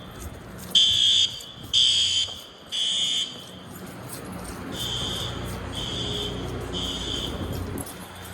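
School fire alarm horns sounding in the temporal-three evacuation pattern: three high-pitched beeps about half a second apart, a pause of about a second and a half, then three more. The second group is quieter than the first.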